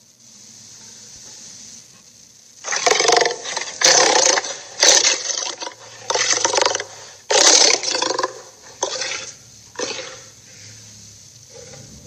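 Cartoon sea-monster sound effects: after a faint start, a run of about eight loud, rough bursts, each lasting less than a second.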